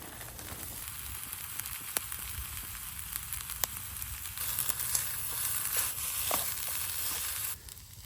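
Hash browns with bacon frying in a pan over a wood-stove fire: a steady sizzle with scattered pops and crackles, which drops away abruptly near the end.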